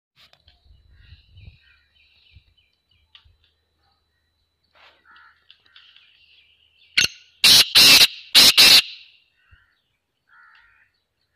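Male black francolin calling: one short note, then a loud, harsh call of four strokes in two quick pairs, about seven to nine seconds in. Faint chirps of small birds come before and after.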